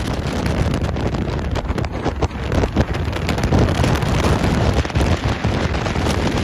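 Strong, gusty wind buffeting the microphone: a loud, uneven rushing roar, heaviest in the low end.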